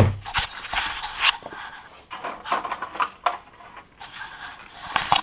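Irregular rustling, scraping and light knocks of objects being handled, in quick uneven bursts.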